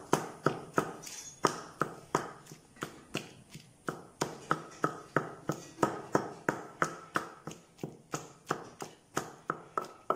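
Long wooden pestle pounding and grinding raw mango with spices in a heavy stone mortar: steady, even knocks, about three a second.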